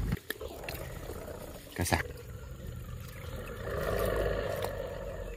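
Water sloshing and splashing, with a sharp splash or knock about two seconds in.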